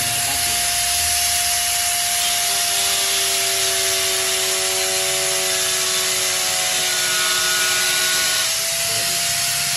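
Electric angle grinder running with a steady high whine and hiss, cutting into a black plastic motorcycle headlight visor. Its pitch sags a little under the load of the cut for most of the time, then picks back up near the end.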